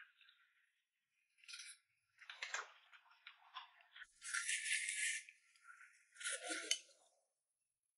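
Close-miked eating noises in several short bursts, the loudest a little over four seconds in and again a little after six seconds.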